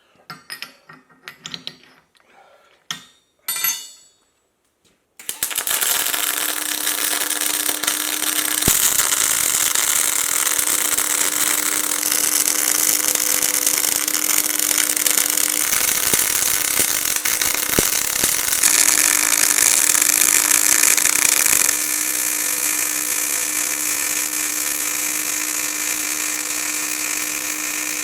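A few light metal clinks, then an electric power tool starts about five seconds in and runs steadily and loudly with a constant hum and a strong hiss, easing slightly in level about three-quarters of the way through.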